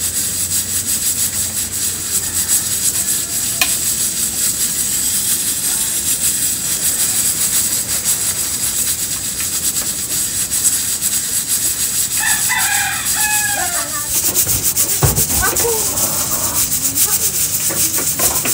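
A rooster crows once about twelve seconds in, a run of falling calls, over a steady hiss. A few short knocks follow a couple of seconds later.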